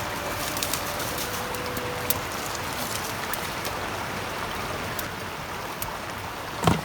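Steady rush of a flowing river, with scattered small crackles over it and a single louder knock near the end.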